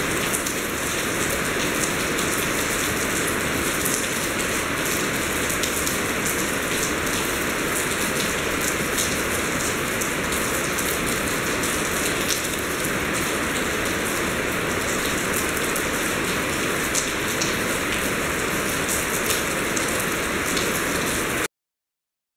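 Steady heavy rain falling, with sharp ticks of individual drops striking close by. It cuts off suddenly near the end.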